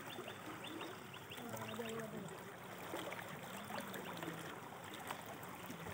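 Swollen, muddy river in flood flowing past the bank: a steady wash of moving water, with faint short chirps over it early on.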